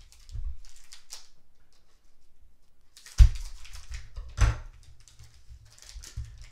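Baseball cards being handled: a light rustle as the cards are leafed through, then after a short pause two sharp knocks a little over a second apart, each followed by more rustling, as things are set down on the table.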